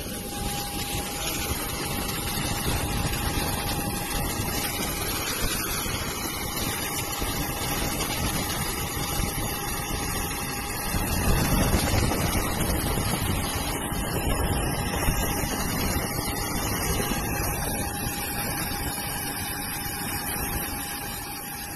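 Storm wind and driving rain, a steady rushing noise that swells slightly about halfway through, with a thin steady whine running under it.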